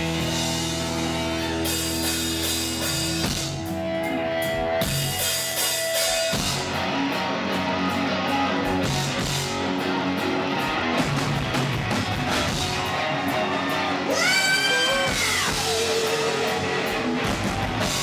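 Rock music with electric guitar and a drum kit. About two-thirds of the way in, a woman's voice sings a long note that bends up and then slides down.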